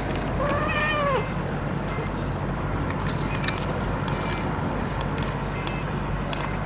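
Russian blue cat giving one short meow-like call that rises and then falls, about half a second in, while it watches a fly it wants to catch, over a steady low hum.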